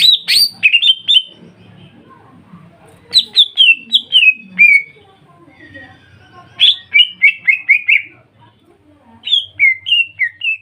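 Cucak ijo (green leafbird) singing: four loud bursts of quick, sharply falling whistled notes, each burst lasting one to two seconds with short pauses between.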